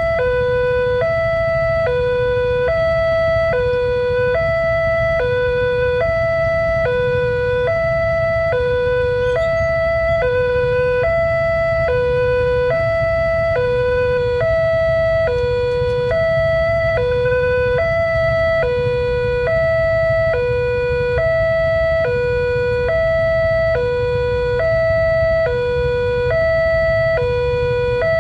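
Railway level-crossing warning alarm sounding to signal an approaching train: an electronic two-tone signal alternating high and low, about one high-low cycle a second, over a steady low rumble.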